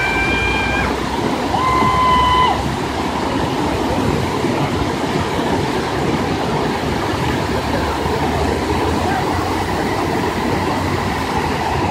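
Rushing white water of river rapids, a dense steady roar. Two brief, steady high-pitched tones sound in the first two and a half seconds, one ending just under a second in and the other about two seconds in.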